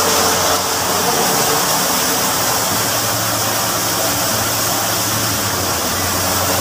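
Water spraying and rushing from a float valve's inlet into a cistern tank, a steady loud hiss, with a low steady hum underneath.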